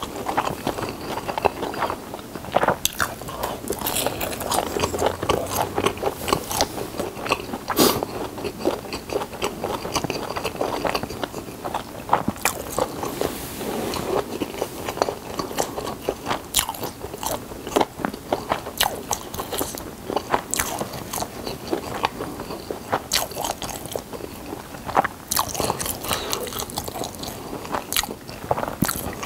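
Close-miked biting and chewing of a steamed dumpling (mandu), with irregular wet clicks and smacks of the mouth throughout.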